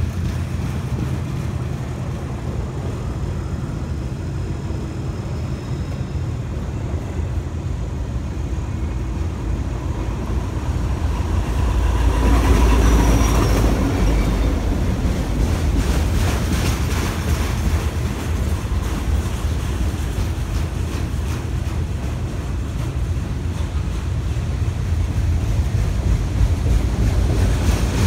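Long autorack freight train rolling slowly past with a steady low rumble and wheel clatter. About twelve seconds in, a set of diesel helper locomotives on the adjacent track passes close by and the sound swells for a couple of seconds, with a held whine under it.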